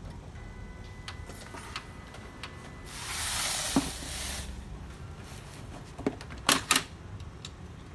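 A plastic laser printer being turned around on the cardboard box it stands on: a scraping rush lasting about a second and a half, with a knock in the middle. A few sharp plastic clicks and knocks follow near the end as the printer is handled.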